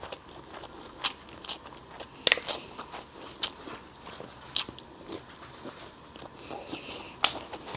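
Close-miked chewing of imitation crab sticks: soft mouth sounds broken by about half a dozen sharp, wet clicks and smacks, a second or so apart.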